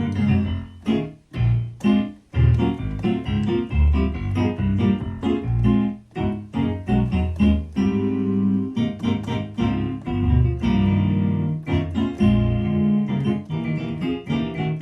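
Korg M50 synthesizer played with a piano or electric piano sound: chords over low bass notes, many notes struck in quick succession, testing the keybed after new hammer felt was fitted.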